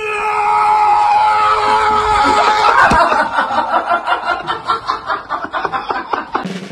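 People laughing: a long drawn-out note for the first couple of seconds, then rapid chuckling pulses several times a second.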